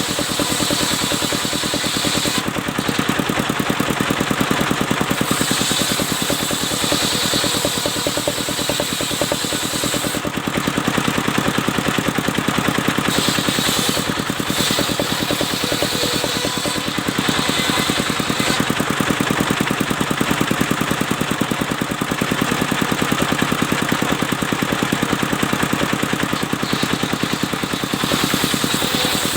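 Engine of a mobile circular sawmill running steadily to drive the saw blade through albasia wood, its upper sound brightening and dimming several times as the work goes on.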